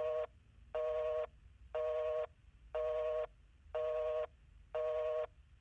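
Telephone busy signal: a steady two-tone beep about half a second long, repeating about once a second, meaning the line is engaged.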